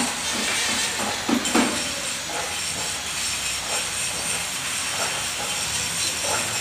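Telescopic steel tower mast being extended, its raising mechanism running with a steady mechanical noise and a few clunks about a second and a half in.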